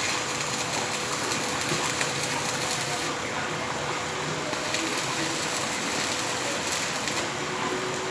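Electric arc welding: the welding arc giving a steady crackling hiss.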